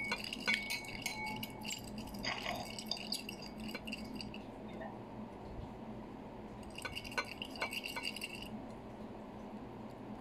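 Fork clinking and tapping against a plate while eating pancake: a cluster of light clinks with short ringing over the first few seconds, and another around seven to eight seconds in.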